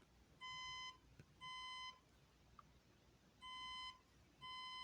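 Fire alarm speaker strobe sounding the temporal-three evacuation tone that opens a recorded voice evacuation message: steady half-second beeps about a second apart, two, then a pause of about a second and a half, then two more.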